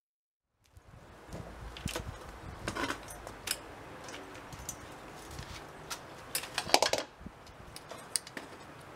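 Metal-framed folding garden chairs being handled and folded, giving irregular clicks and light metallic clatters that start about half a second in, with a louder cluster of clatters about seven seconds in.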